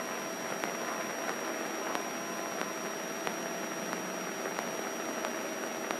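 Steady hiss of a light single-engine airplane's cabin in cruise flight, the engine muffled, with faint regular ticks about one and a half times a second.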